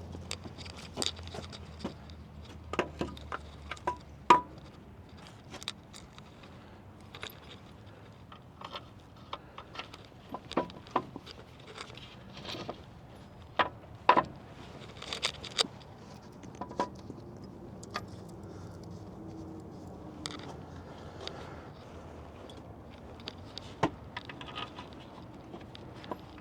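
Irregular metallic clicks, clinks and light scrapes of hand tools and alternator mounting screws being handled, with a faint low hum under the first few seconds.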